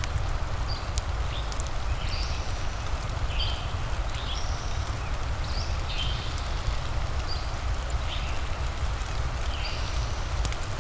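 Steady rain hiss over a low rumble, with scattered sharp clicks. Short high chirps from a small animal repeat about once or twice a second throughout.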